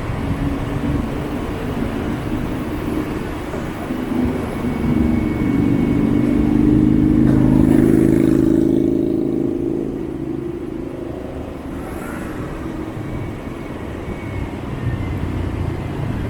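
Street traffic heard from a moving motorbike: a steady engine and road rumble. An engine's hum swells louder from about five seconds in, peaks near the middle and fades away again.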